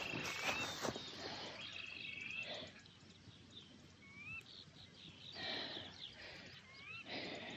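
Birds calling: a few short, thin whistled notes that glide upward, spaced a second or more apart, over faint rustling background noise.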